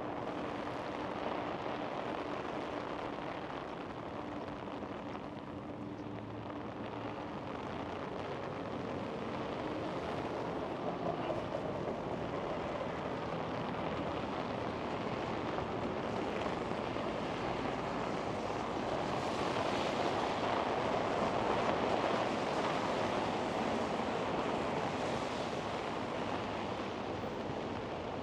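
City street traffic on wet roads: a steady hiss of tyres and engines that swells louder about twenty seconds in, then eases off.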